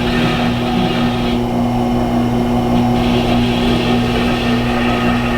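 Tormek T-8 sharpener motor running steadily with a Leatherman blade being honed on its leather honing wheel, a sound the sharpener thinks carries the burr being knocked off the blade. The hiss of the blade on the wheel thins out for about a second and a half near the middle.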